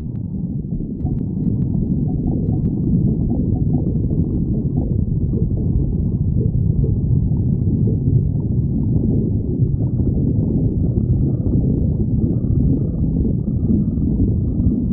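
A person's stomach growling from hunger: a continuous low rumble without a break.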